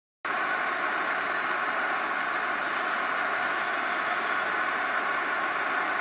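Steady hiss with a few faint, steady tones in it. It starts abruptly after a moment of silence, about a quarter of a second in.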